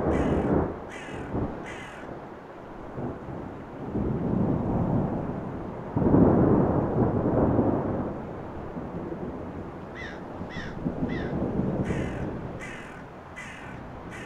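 A bird calling in sets of three short calls, one set at the start and two more from about ten seconds in, over a low rumbling background that swells about six seconds in.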